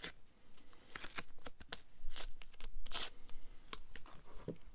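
Sticky brown paper being torn by hand and handled, giving a string of short, irregular papery crackles and rips.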